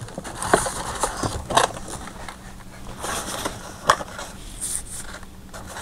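Boxed and blister-carded toy cars being handled in a plastic storage tub: cardboard and plastic packaging rustling and shuffling, with a few sharp clacks as packages knock together and against the tub.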